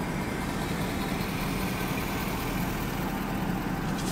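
Ford F350's 6.7-litre Power Stroke diesel V8 idling, a steady low hum heard from inside the cab.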